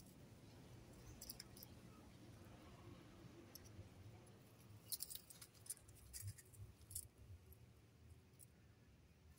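Near silence: faint outdoor background with a few brief, faint clicks around the middle.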